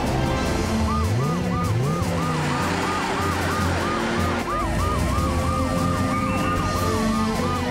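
Emergency-vehicle sirens over background music: a fast yelping siren rising and falling about three times a second, joined about halfway through by a slower wailing siren.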